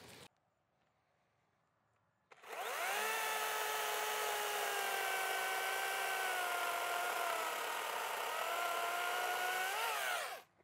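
Makita XCU06Z cordless top-handle chainsaw starting about two seconds in and running steadily while cutting through a tree limb. Its whine sags slowly in pitch under load, rises briefly near the end, then stops.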